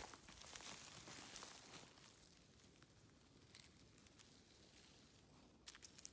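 Near silence with a faint rustle and crackle of dry, charred pine needles and twigs that fades over the first two seconds, then a few soft ticks, twice close together near the end.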